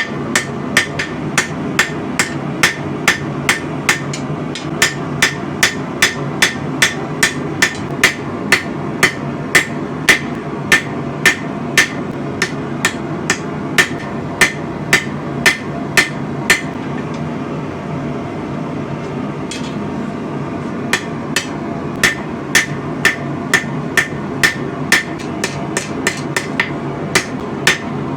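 Hand hammer forging spring steel on an anvil: a steady run of ringing blows, about two a second, with a pause of a few seconds past the middle. A steady low rumble runs underneath.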